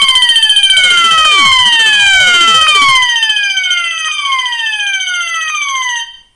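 Fire alarm notification appliances on a test fire alarm system sounding together: a steady high tone with repeated falling sweeps over it, set off by a key switch turned to test. The alarm cuts off suddenly about six seconds in when the panel is silenced.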